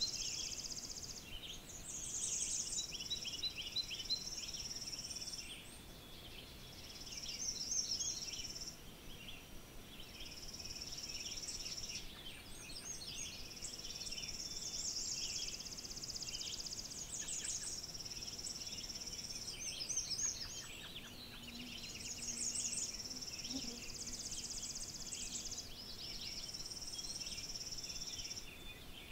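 Birds singing in a northern forest: long, high, even trills of a few seconds each follow one another, over a busy layer of shorter, lower chirps and trills.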